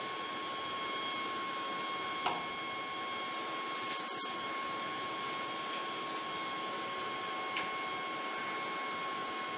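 3D printer standing idle after a finished print, its fans running with a steady hum and a high whine. A few light clicks and taps sound over it, the sharpest about two seconds in.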